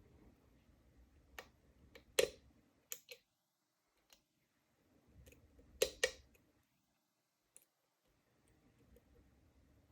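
Pin-tumbler Lockwood oval cylinder being picked: scattered small clicks of the pins and core under the pick and tension wrench. The loudest pairs come about two seconds in and about six seconds in.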